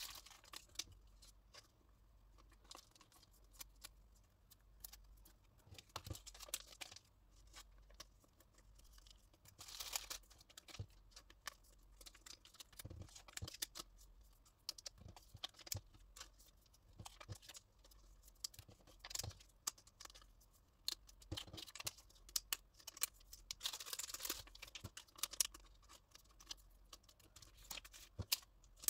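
Faint rustling and crinkling of clear plastic sleeves and light clicks of photocards being handled and set down on a wooden desk, with louder bouts of crinkling about ten seconds in and again in the last third.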